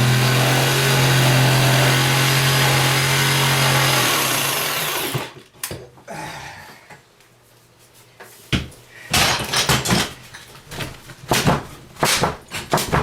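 A power tool running steadily at full speed, then winding down about four seconds in, followed by a string of sharp knocks and cracks, typical of wall material being broken away around a cracked waste pipe.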